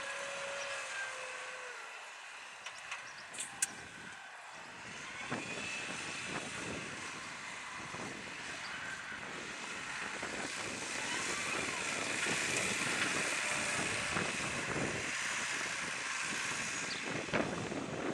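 Case IH Puma 200 CVX tractor's six-cylinder diesel running in the field, its engine note falling over the first couple of seconds. A broad rushing noise then swells through the second half, with a few sharp clicks about three seconds in.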